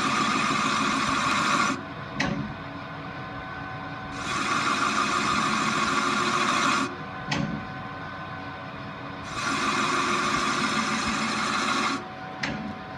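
Machine tool cutting metal on a turbocharger part in repeated passes: three loud cutting stretches of two to three seconds each. Between them the machine hums more quietly, with a sharp click in each gap.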